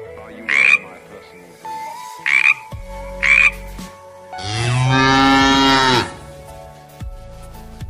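Three short, sharp gull calls, then a cow mooing once, a long, loud moo lasting about a second and a half.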